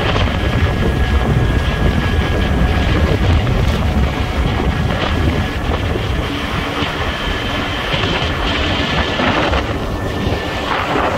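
A vehicle on the move: a steady low rumble of engine and road noise, with a faint steady whine above it.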